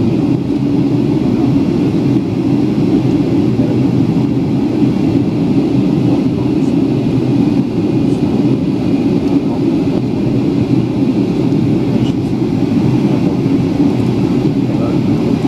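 Jet airliner cabin noise heard from a window seat: engines and rushing air make a steady, even low rumble that does not change.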